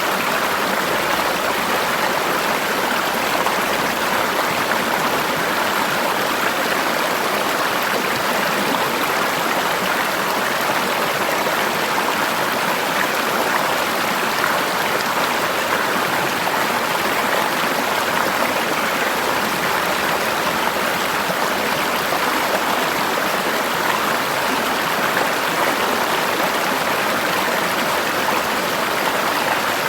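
Forest river water flowing and rushing over rocks: a steady, even rush with no breaks.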